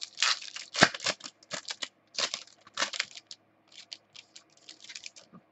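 Trading cards being handled and flipped through, giving irregular quick clicks and short scrapes as the cards slide over one another.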